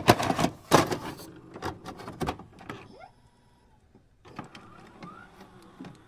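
A VHS cassette pushed into a VCR: a quick run of clicks and clunks in the first couple of seconds as the loading mechanism takes the tape, then a much quieter motor whirr with a few scattered ticks.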